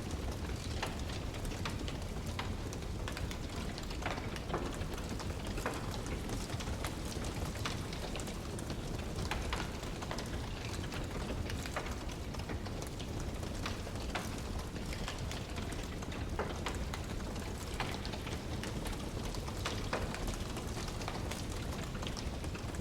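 Wood fire crackling in a fireplace: frequent irregular sharp pops and snaps over a steady low rushing noise.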